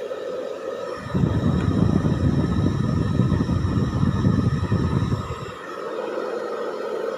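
Handheld hair dryer running, a steady blowing hiss with a motor whine. From about a second in, a loud low rumble joins for about four seconds, then stops.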